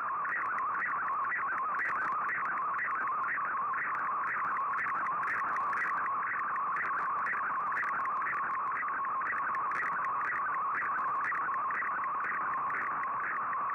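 Shortwave Radiogram's digital picture transmission on 15770 kHz, heard through an Icom IC-R8600 receiver: a band of warbling data tones between about 1 and 2 kHz, pulsing about four times a second as a colour image is sent, over a faint bed of shortwave hiss.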